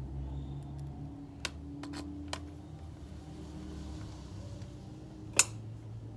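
A handful of light clicks and taps, with one sharper, louder click about five seconds in, over a low steady hum.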